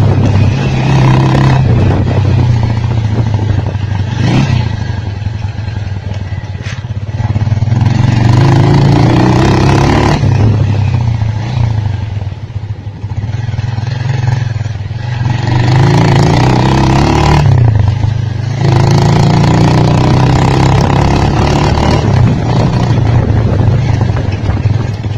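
2003 Bajaj Pulsar 150's single-cylinder four-stroke engine running under changing throttle, its pitch rising and falling several times. It sounds through a silencer with an internal part removed to change the exhaust note.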